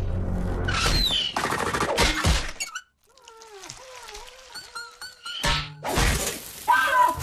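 Cartoon music with slapstick sound effects. Loud crashing clatter at the start, a wobbling, gliding tune in the middle, then more crashing near the end.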